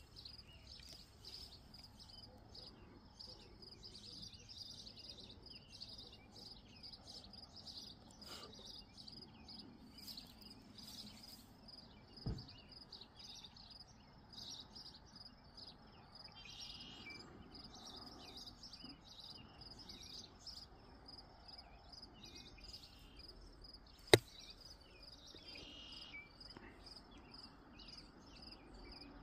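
Crickets chirping in a steady pulsing chorus, with a few bird chirps now and then. A dull thump about twelve seconds in, and a sharp click about two-thirds of the way through, the loudest sound.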